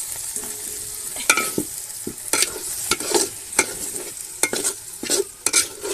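Chicken pieces sizzling as they fry in a metal pot, with a steady hiss, while a metal ladle stirs them, scraping and clacking against the pot several times.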